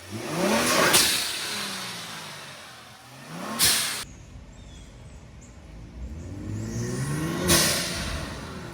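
Kia Stinger GT's twin-turbo V6 climbing in revs three times under throttle, with a strong intake sound. Each climb ends in a loud whoosh from the Forge dual blow-off valves venting boost as the throttle closes, then the revs fall away. The second whoosh cuts off abruptly.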